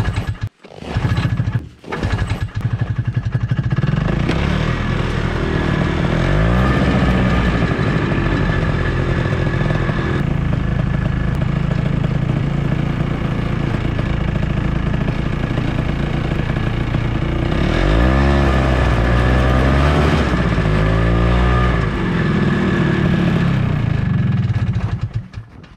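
Ski-Doo Tundra snowmobile engine being pull-started, catching after a few short pulls about two seconds in, then running steadily. It is revved up and down a few times, once around six seconds in and again in quick blips about eighteen to twenty-two seconds in.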